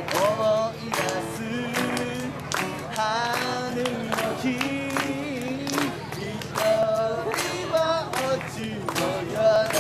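A man singing a melody with long held notes while strumming an acoustic guitar.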